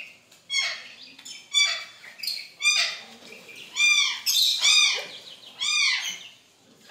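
Young white chickens peeping: a string of short, high, arching calls, one after another every half second or so.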